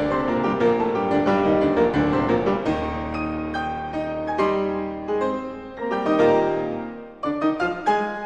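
Background piano music: a keyboard piece of quickly struck notes and chords.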